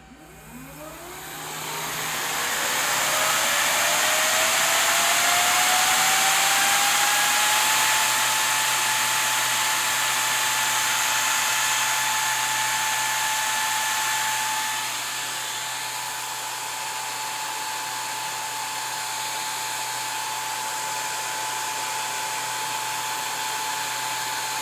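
A 48-volt DC fan, used as the test load on a power supply, spinning up as the output is enabled. A whine rises in pitch for about eight seconds over a growing rush of air, then the fan runs steadily at full speed. It dips slightly in loudness about fifteen seconds in and starts to wind down at the very end.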